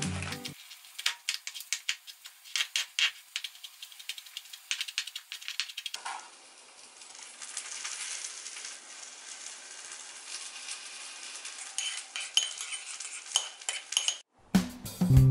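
A plastic zip-top bag crinkling and clicking as it is handled, then a metal spoon stirring, scraping and lightly clinking against a small ceramic bowl while mixing a soy dipping sauce.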